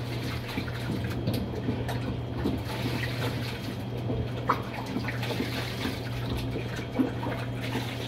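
Top-loading washing machine drum coasting in its spin cycle after being switched off, with steady watery swishing and a low hum and a few light clicks. The machine still spins but no longer washes.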